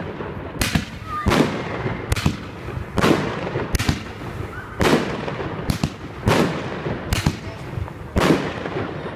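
"Armageddon" fireworks battery firing its shots in quick succession: about ten loud bangs, one roughly every second, each with a crackling tail.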